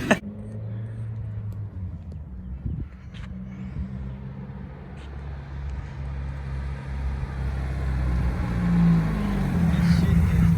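Subaru WRX's turbocharged flat-four engine running as the car is driven, growing louder over the last few seconds.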